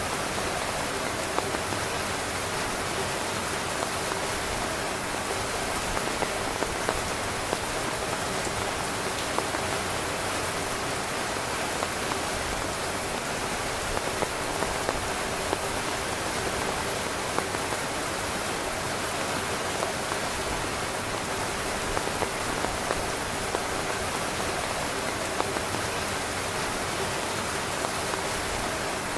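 Heavy rain falling on a tent's fabric: a steady, dense hiss with frequent sharp taps of individual drops.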